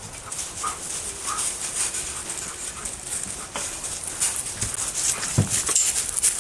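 A pack of dogs milling about on gravel: paws scuffling and crunching, with a few short whines in the first couple of seconds and a short low sound about five seconds in.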